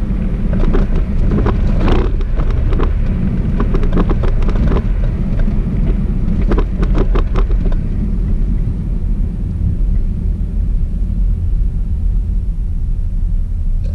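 Steady low road and engine rumble inside a moving car's cabin, with scattered short clicks and knocks during the first half.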